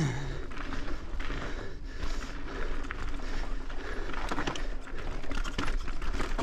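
Mountain bike rolling fast down a rocky dirt trail: the tyres crunching over dirt and loose stones while the bike rattles with many irregular clicks and knocks.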